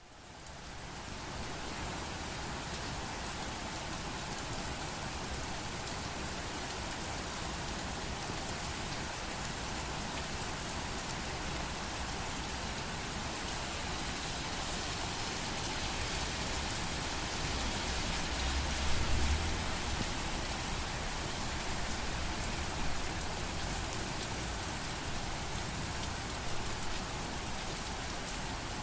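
Steady rain falling, fading in over the first second. A brief low rumble comes about two-thirds of the way through.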